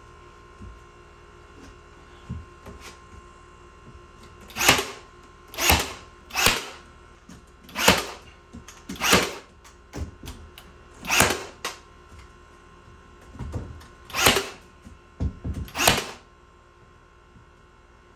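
About nine sharp strikes, loosely spaced about a second apart, as a painted wooden wainscoting panel is fastened onto the side of a cabinet, over a faint steady hum.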